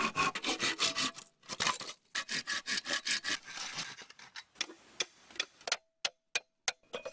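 Hand saw cutting through a moso bamboo culm in quick back-and-forth strokes, about four a second. After about four seconds it gives way to a string of separate sharp knocks as a machete blade works the cut bamboo tube.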